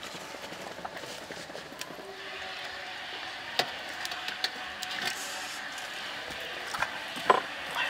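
Water splashing and dripping as a whole coconut is lifted out of a metal pot of hot water, with a few sharp knocks, the loudest near the end.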